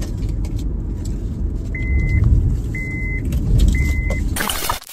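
Steady low rumble of a car driving, heard from inside the cabin. Near the middle come three short high-pitched beeps about a second apart, and a brief loud noise just before the end.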